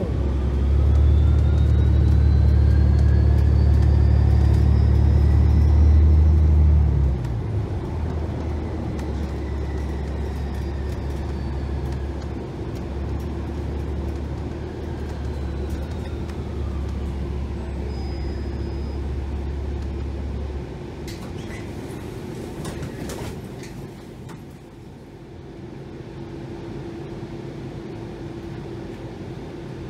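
Inside a New Flyer XDE60 diesel-electric hybrid bus: the Cummins L9 diesel engine runs with a loud low drone for the first several seconds while the electric hybrid drive's whine rises as the bus speeds up. The drone then eases, the whine falls as the bus slows, and the engine sound drops away about two-thirds through. A few sharp knocks follow.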